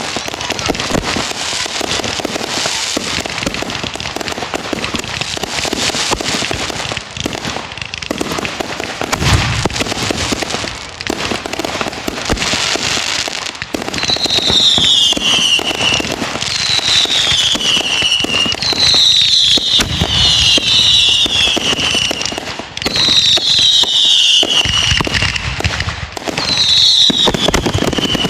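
Fireworks going off with dense, loud crackling and popping and a deep boom about a third of the way in. From about halfway, a run of about six whistles, each falling in pitch over roughly a second.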